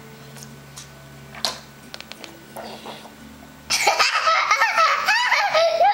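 A young child's high-pitched voice, wavering up and down in pitch like laughing or squealing, starting loudly about two seconds from the end after a quiet stretch with a few faint clicks.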